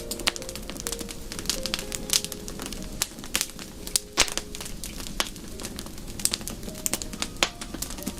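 Wood fire crackling in a fireplace, with frequent sharp, irregular pops and snaps. Soft, held low tones sound faintly underneath.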